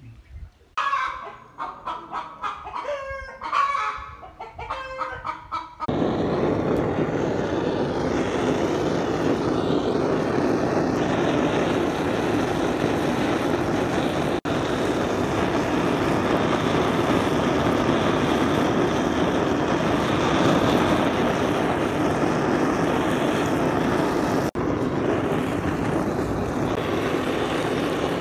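Hens clucking in short calls for the first few seconds. Then, about six seconds in, a gas blow torch starts and runs with a loud, steady hiss, broken twice by brief dropouts.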